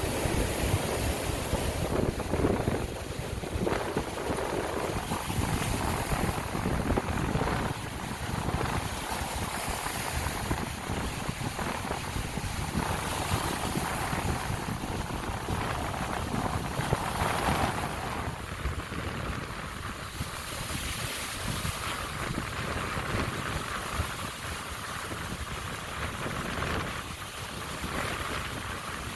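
Lake Michigan waves breaking and washing onto the beach, a steady rush that swells and ebbs every few seconds, with wind rumbling on the microphone.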